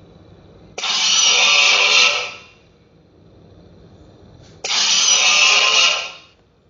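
Two harsh, rasping roars of Gorosaurus, the Toho film kaiju, as a monster sound effect. Each lasts about a second and a half, starts abruptly and fades out, with a pause of about two seconds between them.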